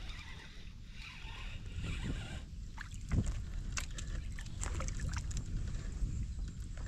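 A small bass being reeled in on a spinning reel and thrashing at the water's surface beside the kayak. Scattered short, sharp splashes start about two and a half seconds in, over a steady low rumble.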